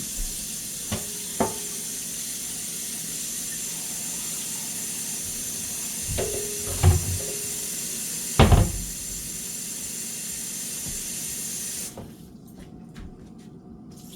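Kitchen tap running steadily into a pot to fill it with water for boiling noodles, with a few knocks of the pot against the sink. The tap shuts off suddenly about twelve seconds in.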